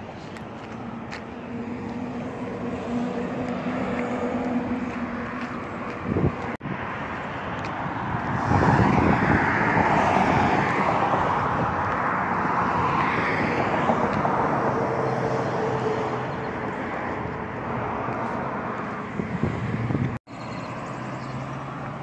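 Road traffic driving past on a busy multi-lane road, a steady rush of cars that grows louder for several seconds around the middle as vehicles pass close, with two brief breaks.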